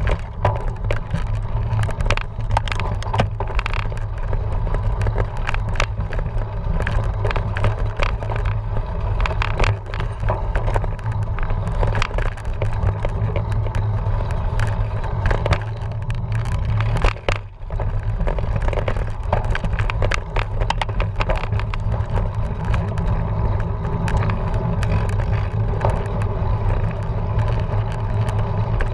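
Cyclocross bike ridden over rough ground: a steady low rumble with constant rattling and clattering of the frame and chain, and a brief lull about 17 seconds in.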